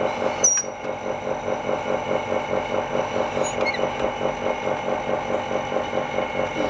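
A small pump motor running steadily with a fast, even pulsing, with a brief high squeak about half a second in.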